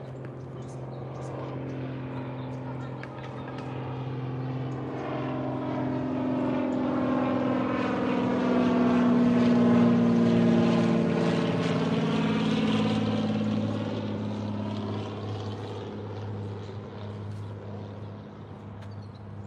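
A propeller aircraft flying over. Its engine drone swells to a peak about halfway through and then fades, the pitch dropping as it passes.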